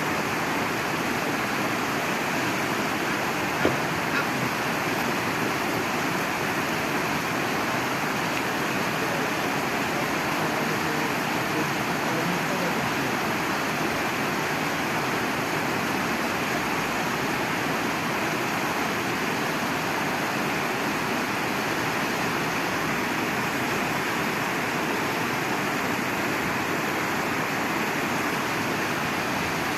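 Steady rushing noise of moving water, even and unbroken.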